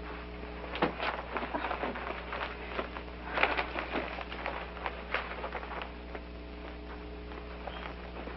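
Rustling of clothes and small knocks and clicks as a suitcase on a bed is rummaged and emptied, busiest in the first five seconds or so, over a steady hum.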